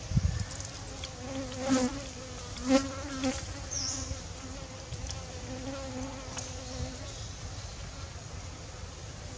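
A flying insect buzzing near the microphone with a steady hum, swelling twice as it passes close, about two and three seconds in, and dying away about seven seconds in. A brief low thump comes right at the start.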